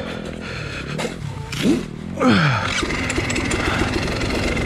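Husqvarna dirt bike's engine being started about halfway through, rising briefly in pitch, falling back and then running steadily.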